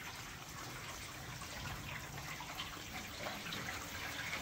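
Faint water from a garden hose running along a metal rain gutter, trickling and dripping: a test run of the newly fitted gutters.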